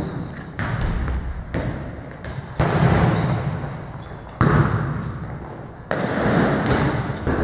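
Volleyball being hit back and forth in a passing and hitting drill: five sharp smacks, about a second or more apart, each trailing off in a long echo in the large gym.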